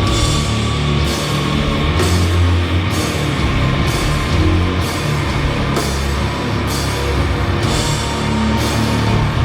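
Doom metal band playing live at full volume: heavily distorted guitars and bass grinding out a slow, low riff, with cymbals crashing about once a second.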